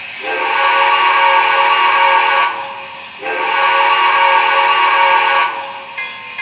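Steam whistle sound effect from the Proto-Sound 3.0 system of an MTH model New York Central 4-6-4 J-1e Hudson, played through the locomotive's speaker: two long blasts of about two seconds each, each bending up in pitch as it starts. Near the end a bell begins ringing at a steady beat.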